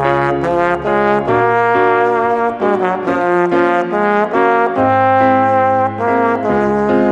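Trombone and piano duo: the trombone plays a quick line of short, separate notes over piano accompaniment.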